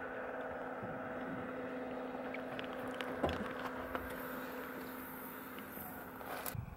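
Steady engine hum, with a few faint clicks about three seconds in.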